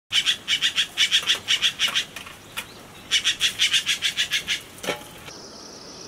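Yellow-billed blue magpie calling: two bouts of rapid repeated call notes, about six a second, with a pause of about a second between them.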